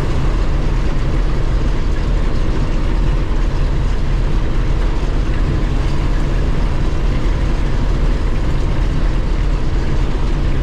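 Combine harvester running steadily while cutting wheat: a constant low drone.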